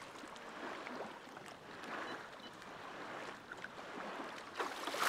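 Shallow lake water lapping and sloshing around a wading angler's legs as a carp is released by hand, with a sharper splash about four and a half seconds in as the fish kicks away.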